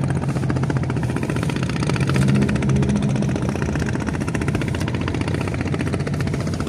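An engine running steadily with a fast, even pulse, growing a little louder for a second or so about two seconds in.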